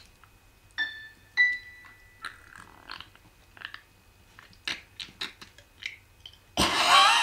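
A couple of short keyboard notes from a laptop, a few light clicks and small mouth noises, then about six and a half seconds in a man's loud, strained vocal warm-up cry whose pitch wavers up and down.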